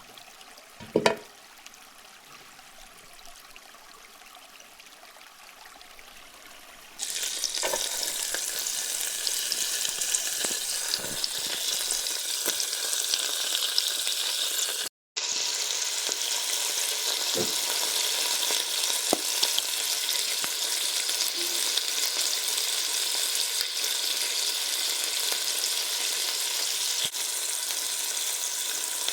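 Food sizzling in hot oil in a frying pan, starting suddenly about seven seconds in after a few quieter seconds with a single knock; a few light knocks sound over the steady sizzle, and it drops out for an instant midway.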